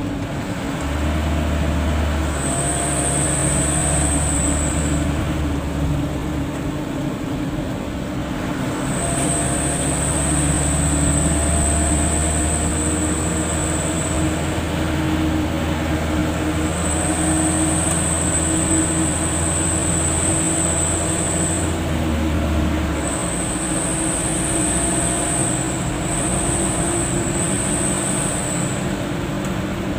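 Car cabin noise while driving: a steady engine drone and road rumble. A thin high-pitched whine comes and goes over it in stretches of a few seconds.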